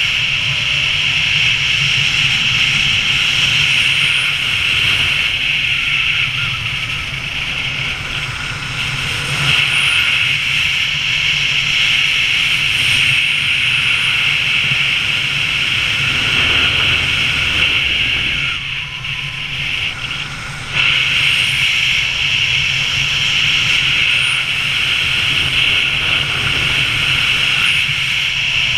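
Loud, steady rush of wind over a helmet camera's microphone as a speed rider flies on skis under a small speed wing. The rush dips briefly about two-thirds of the way through, then comes back.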